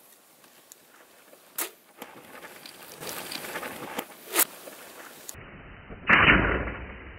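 A bow being shot: a sharp crack about six seconds in, followed by a loud rush that lasts under a second. Two fainter sharp clicks come earlier.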